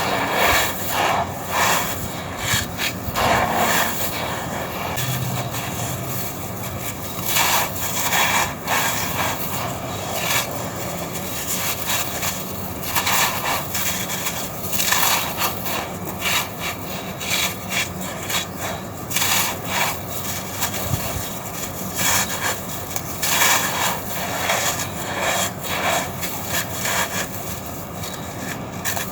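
Dry red sand-cement chunks being crushed and crumbled by hand, a gritty crunching that comes in repeated louder bursts.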